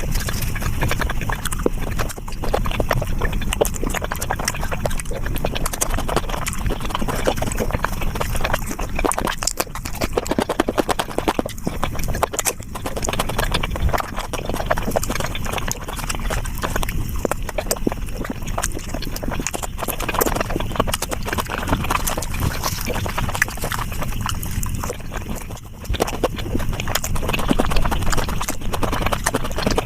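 Close-up eating sounds sped up several times: a dense, rapid stream of chewing, smacking and mouth clicks while eating flatbread with curry.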